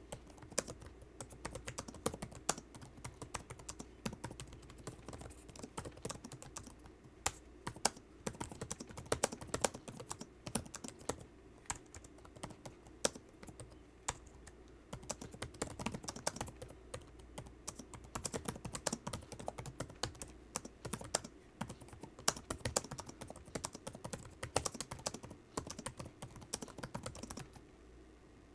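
Typing on the Dell XPS 17 9700's built-in laptop keyboard: a fast, uneven run of key clicks, with a short pause near the end.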